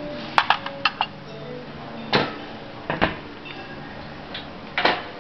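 Metal serving spoon clinking against a stainless-steel buffet chafing dish and a china plate while food is served: a quick run of clinks about half a second in, then single clanks every second or two.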